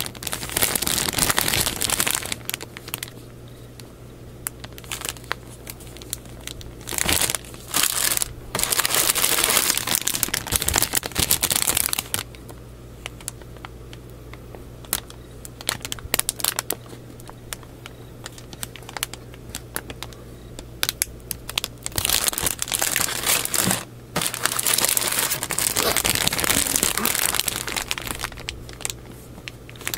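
Clear plastic bags around model-kit runners crinkling as they are handled and turned over, in several bursts of a few seconds with quieter pauses between.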